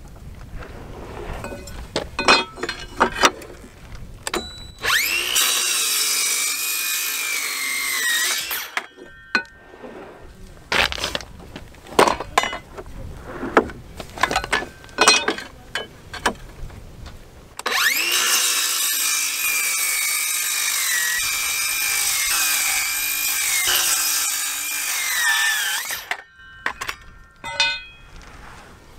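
Cordless Craftsman circular saw crosscutting treated 2x6 lumber: two cuts, the second about twice as long. The motor whine rises as each cut starts and falls away as it finishes. Short knocks and clicks sound between the cuts.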